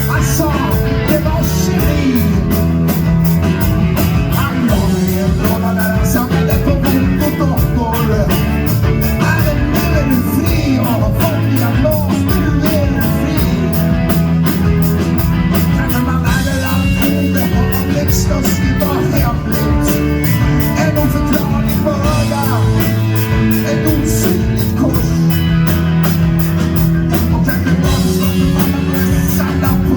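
Live rock band playing loudly, with a steady drumbeat and singing.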